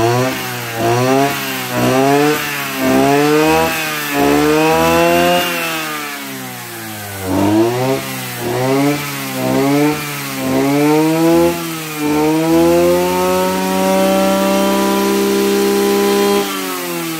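Kubota DB262 brush cutter's 26 cc two-stroke engine revving with the blade spinning: the throttle is blipped up and down about once a second, then held at high revs for several seconds near the end before it drops back.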